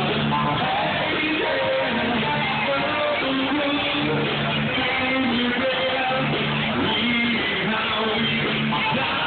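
A live band playing, with electric guitar prominent.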